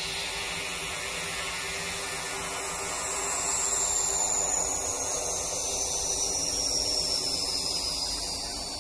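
Electronic noise sweep: a steady hiss with a high tone that slides slowly downward, swelling slightly about three seconds in.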